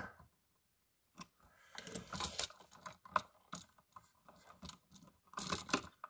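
Light, irregular clicking and scraping of needle-nose pliers and stiff wire against the outlet as wire ends are bent into hooks for the terminal screws. It starts about a second in and gets a little louder near the end.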